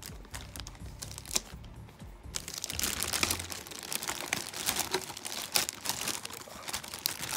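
Thin clear plastic bag crinkling and crackling as hands work it off a toy RC truck. The crinkling is light at first, then turns dense and louder about two and a half seconds in.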